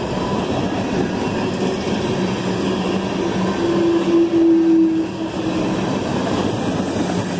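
Coal cars of a CSX freight train rolling past: a steady rumble and clatter of wheels on rail. A steady high tone rises out of it for about two seconds midway, as the last cars go by.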